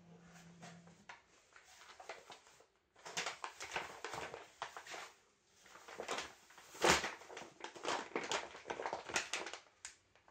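Paper shopping bag rustling and crinkling in irregular bursts as a cat thrashes inside it and tears at it, quiet at first, busiest from about three seconds in, with the loudest crackle near seven seconds.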